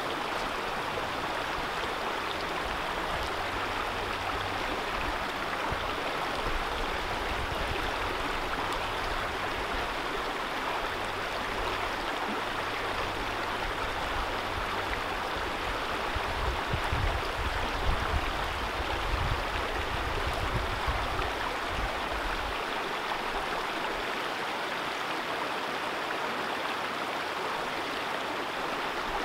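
Stream running: a steady rush of flowing water, with some uneven low rumbling partway through.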